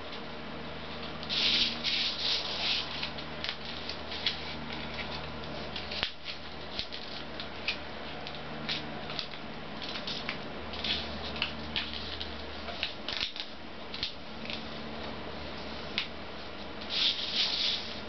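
Origami paper rustling and crinkling as it is folded and creased by hand, in short irregular bursts, with a denser flurry about a second and a half in and again near the end. A low steady hum runs underneath.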